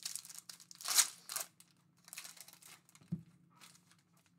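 Foil trading-card pack wrappers crinkling and tearing as packs are ripped open by hand, in several short crackles, the loudest about a second in. A light thump about three seconds in.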